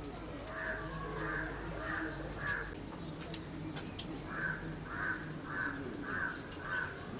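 A crow cawing in repeated short calls: a run of four about half a second apart, a pause of under two seconds, then another even run of about six.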